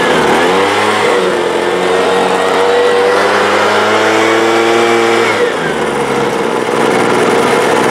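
Craftsman (Troy-Bilt) B215 two-stroke gas leaf blower engine running: it revs up in the first second, holds at high speed, then drops back to a lower idle about five seconds in.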